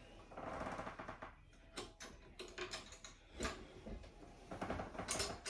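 A scraping rustle, then a series of separate clicks and knocks as the frame clamps of a wheelchair trike connector are undone and taken off the wheelchair frame by hand.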